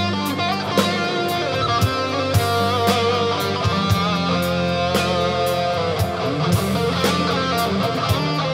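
Band music with electric guitars over a steady drum beat.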